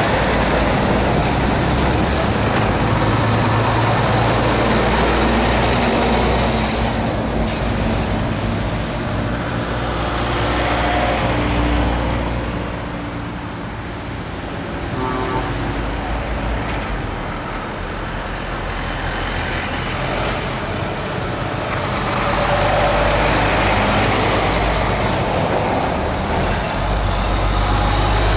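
Heavy trucks driving past one after another at close range, diesel engines running. A Scania with a semi-trailer goes by at the start, it is quieter in the middle while cars pass, and it grows louder again near the end as a MAN tractor unit approaches.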